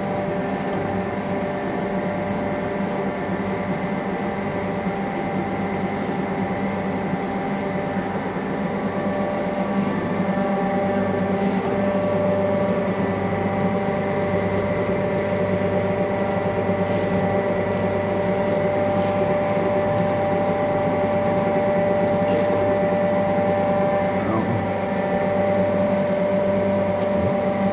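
TOS Hostivař BPH 300 surface grinder running: a steady machine hum with several held tones, a little louder from about ten seconds in, and faint ticks about every five and a half seconds.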